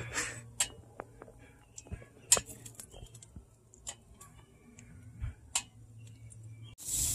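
Metal tongs clicking and tapping against a charcoal grill's wire grate and a plate as strips of pork belly are moved onto the grill: a scattering of single sharp clicks, the loudest about two seconds in. Near the end the sound cuts to a steady hiss of meat sizzling on the grill.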